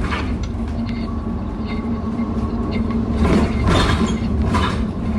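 Inside a moving bus: the engine runs with a steady low drone and rumble while the body and fittings rattle, with a few louder rattles about three to four and a half seconds in.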